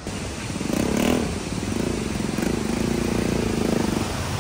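Motorcycle engine picking up about a second in, then running steadily.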